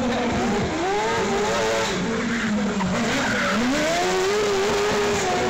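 A shortcar racing car's engine revving hard, its pitch climbing and dropping several times as it is driven hard around the course, with the tyres skidding.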